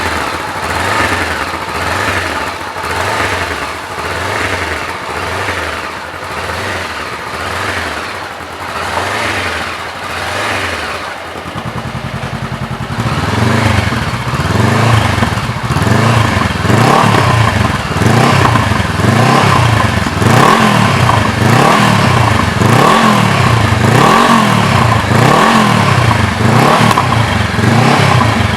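Honda CBR 500R's parallel-twin engine through a Roncar Coyote aftermarket exhaust, revved in short blips about once a second. About 11 seconds in the note turns louder and deeper and the blipping carries on: the Coyote 2Way+ exhaust switched to its louder setting.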